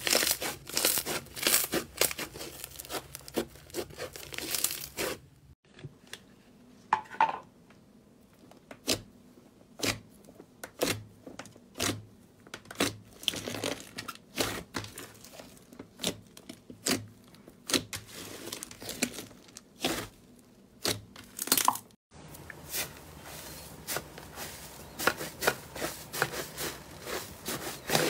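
Hands squeezing and kneading slime, with no voice or music. About five seconds of dense crackling and popping from a bead-filled slime, then slower, separate squelchy pops as a glossy slime is pressed, then soft, continuous tearing and crinkling as a stiff fluffy slime is worked.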